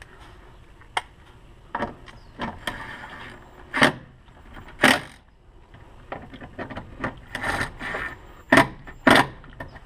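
Ryobi cordless drill/driver run in short bursts to drive in the coolant reservoir's mounting bolts, among sharp clicks and knocks of tool and plastic in the engine bay. The sounds come irregularly, about seven loud ones, with quiet gaps between.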